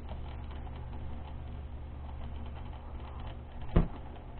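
Steady low hum of a motorized display turntable, with faint light clicks as the wooden model's missile launcher is raised by hand, and one sharp knock near the end.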